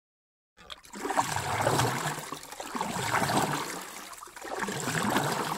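Rushing, splashing water that swells and fades three times, starting about half a second in.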